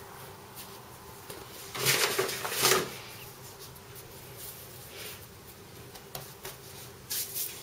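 Plastic-gloved hands rustling and patting floured dough balls on a wooden board, with two louder rustling bursts about two seconds in and a brief one near the end.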